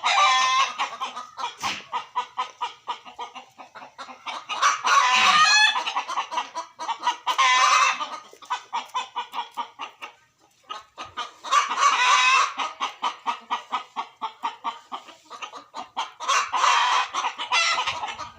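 Chickens clucking in rapid, evenly spaced runs, broken about five times by louder pitched calls of about a second each.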